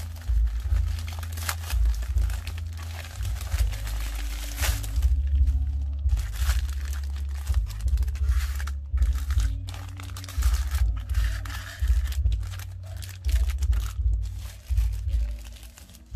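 Plastic packaging crinkling and tearing as phone cases are unwrapped, with irregular rustles and clicks throughout.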